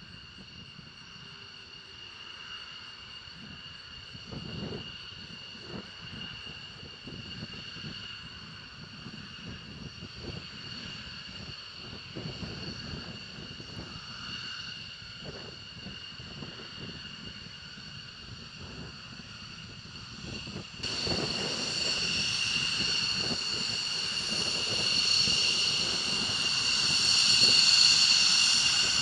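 Jet aircraft engines running with a steady high-pitched whine over a low rumble. About two-thirds of the way through the sound jumps suddenly louder and keeps building toward the end.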